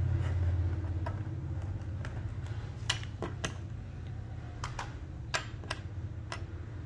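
Plastic keycaps clicking and tapping as they are picked up and set down on a hard surface, about a dozen irregular clicks over a steady low hum.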